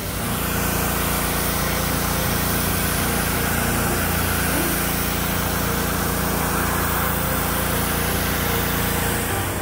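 A pressure washer running steadily: a small-engine drone under the hiss of the water jet blasting grime off the boat's hull.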